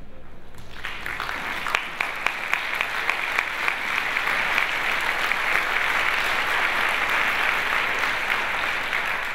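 Audience applauding, beginning about a second in. A few single loud claps stand out at first, then the applause fills in to steady, dense clapping.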